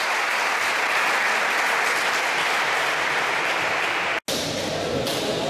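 Steady applause from many hands clapping, including the lined-up players, with one very short silent break about four seconds in.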